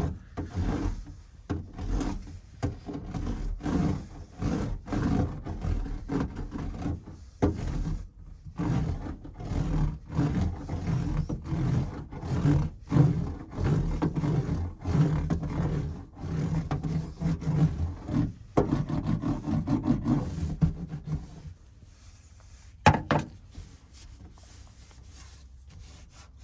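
Hand roller pressed back and forth over foil-backed sound-deadening mat to flatten a raised edge: repeated rough rubbing strokes, about one or two a second, that stop near the end, followed by a single knock.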